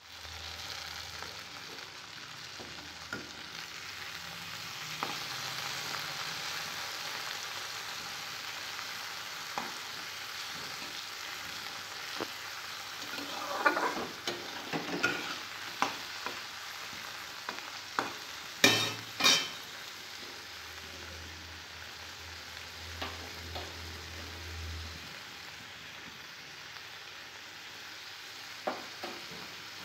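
Yardlong beans and potato pieces sizzling in hot oil in a wok, with a metal spatula scraping through them as they are stirred. Two sharp knocks about two-thirds of the way through are the loudest sounds.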